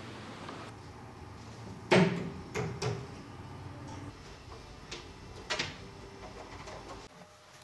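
Wooden knocks and clunks of furniture being put together and moved: a sharp knock about two seconds in, two lighter ones just after, and another a little past five seconds.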